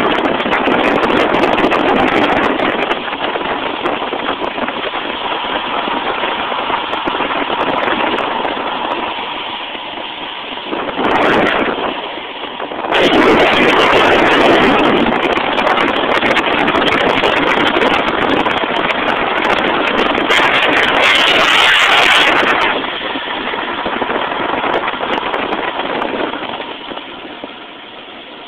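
Wind rushing over a phone microphone with the roll of longboard wheels on asphalt during a fast downhill run: a continuous rough rush, with louder gusts about halfway through, fading near the end.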